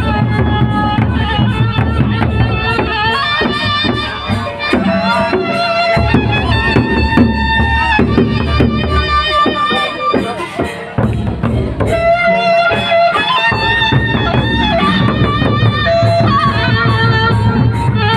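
Sasak gendang beleq ensemble playing: big drums beating steadily under a reedy, wavering wind melody.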